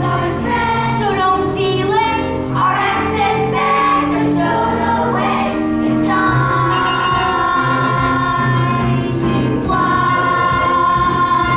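A group of voices singing a show song with instrumental accompaniment, moving between notes and then holding long notes from about halfway through.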